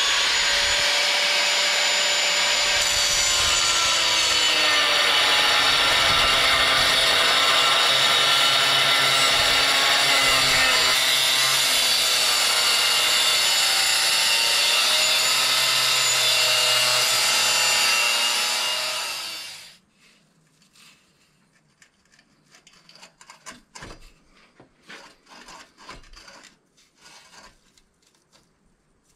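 Angle grinder cutting through the old mild-steel exhaust pipe: a loud, steady whine that stops about 19 seconds in and winds down. Faint clicks and knocks follow.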